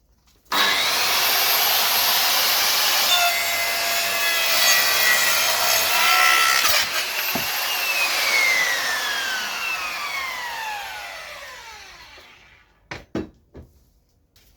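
Electric power tool working on wood: it starts suddenly and runs loudly for about six seconds, then is switched off and its whine falls in pitch as it spins down over several seconds. A few sharp knocks follow near the end.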